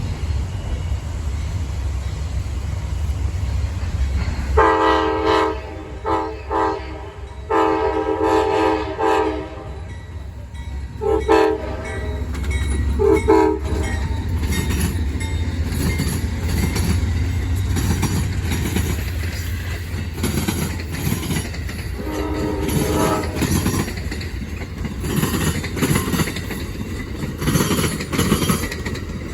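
Amtrak locomotive's multi-chime horn giving a horn salute: a string of blasts between about five and thirteen seconds in, then one more short blast a little past twenty seconds, over the low rumble of the locomotive. In the second half the passing train's wheels clatter rhythmically over the rail joints.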